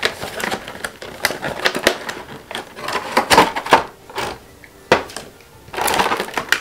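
Small cardboard box of a vinyl toy being opened by hand, a run of irregular clicks and rustles of the packaging with a sharp snap about five seconds in.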